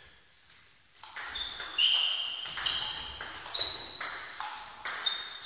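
A table tennis ball being hit by the bats and bouncing on the table and floor: a series of sharp pings with a short high ring, roughly one a second, after a quiet first second.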